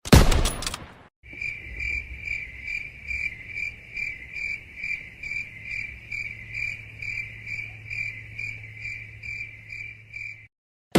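Cricket chirping sound effect, the 'awkward silence' meme: an even train of high chirps, about two to three a second, over a faint low hum. It is preceded by a short loud burst in the first second and cuts off suddenly near the end.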